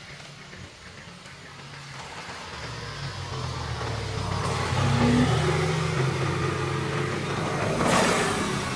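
A car approaching and passing on the road: its engine hum grows louder over several seconds, with a brief rush of passing noise near the end.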